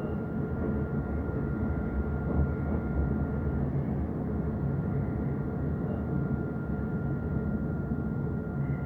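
Dubai Tram running along the track: a steady low rumble with a thin, steady high whine over it that drops out briefly about four seconds in.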